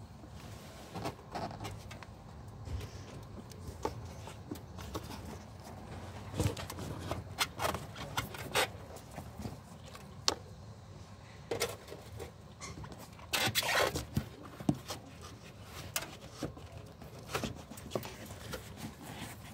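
Scattered clicks, scrapes and rustles of fingers handling the black plastic wiring connector of an exhaust temperature sensor and the hoses around it, with a longer, louder scrape a little past the middle.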